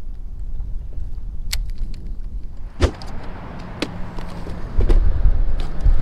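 Wind buffeting the microphone as a low, uneven rumble that grows louder about halfway through, with several sharp clicks and knocks from handling gear.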